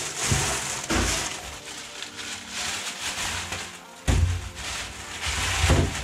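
Rummaging in a chest freezer: frozen packages knocking together with irregular thumps and a plastic bag rustling, over background music.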